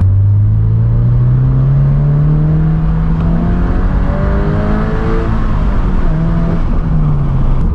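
2022 Subaru BRZ's 2.4-litre flat-four, breathing through an equal-length header and an HKS Spec L exhaust, heard from inside the cabin as the car accelerates in second gear. The engine note climbs steadily for about three seconds, then eases off and wavers.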